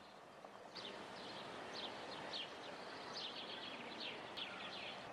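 Bird song: a rapid run of short, high chirps, each sliding down in pitch, starting about a second in, over a steady outdoor background hiss.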